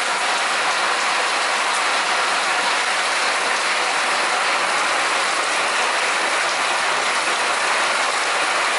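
Heavy sudden downpour: a steady, dense hiss of rain pouring onto a wet concrete patio.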